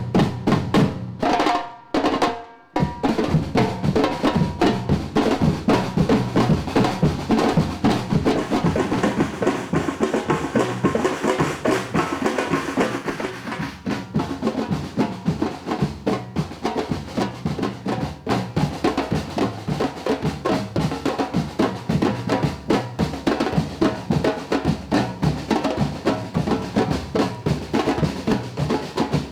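Batucada-style percussion group playing with bass drums and snare drums: dense, fast, driving drumming that comes in about three seconds in, after a brief break.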